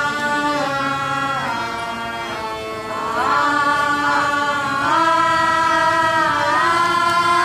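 Voices singing long held notes in a slow Indian-style melody, sliding from one pitch to the next every second or two.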